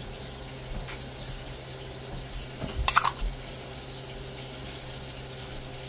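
Kitchen work sounds: a few light taps and one sharper clatter of utensils or dishes about three seconds in, over a steady low hum and a faint hiss.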